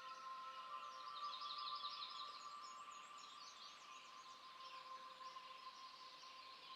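Faint birdsong: chirps and warbles, with a quick trill of repeated notes about a second in, over a few soft, steady held tones.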